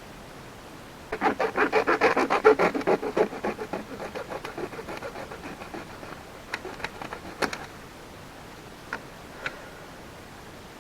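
Hand saw cutting plastic drainage pipe in fast back-and-forth strokes, about four or five a second. The strokes are strongest at first and fade out after a few seconds, followed by a few light clicks and knocks.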